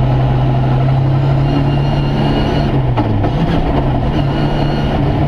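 Rally car's engine heard from inside the cabin, running hard at a steady pitch. About three seconds in the pitch dips briefly, with a sharp click, then climbs again.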